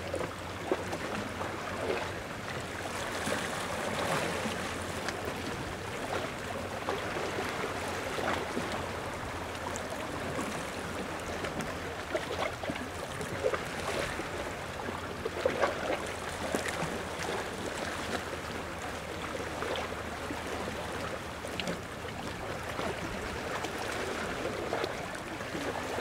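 Small ocean waves lapping at the shore: a steady wash of water with many little splashes and trickles, no big breakers.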